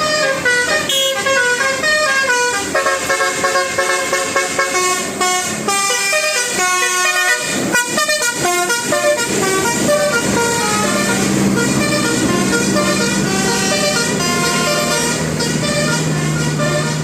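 Indonesian 'telolet' multi-tone bus horns playing quick stepped melodies, note after note, with several horns overlapping. After about ten seconds the melodies give way to lower tones held steady over the running engines.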